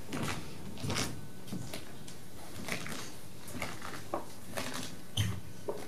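Scattered soft knocks and thuds from movement on a theatre stage, roughly one a second, over a low steady room background.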